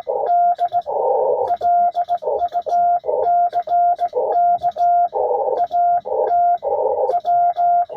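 Morse code (CW) from an amateur HF radio: a single steady tone keyed on and off in quick dits and longer dahs. Receiver hiss fills the gaps between the elements, with faint clicks along with them.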